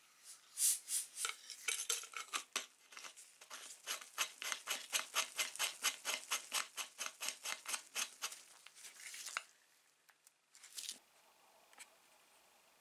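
Metal threads of a vintage Graco hand pump scraping and clicking as the threaded end collar is twisted by hand onto the chrome barrel: a quick, even run of short strokes about four a second that stops about nine and a half seconds in, followed by a couple of single clicks.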